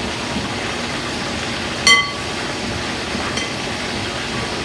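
Hands tossing halved Brussels sprouts in a glass mixing bowl, over a steady hiss. About two seconds in there is one sharp ringing clink against the glass, and a fainter one later.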